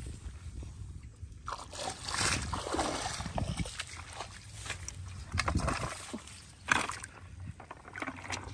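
Shallow muddy water sloshing and splashing in irregular bursts, with a sharp knock about seven seconds in.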